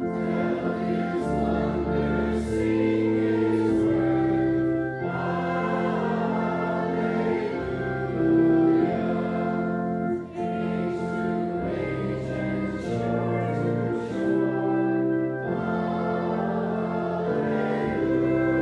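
Congregation singing a hymn together with organ accompaniment: sustained chords that change every second or two under the voices.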